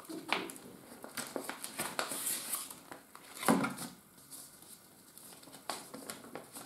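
Clear plastic packaging crinkling and a paper instruction booklet rustling as it is pulled out of its sleeve and unfolded by hand, in short irregular rustles with a few louder ones.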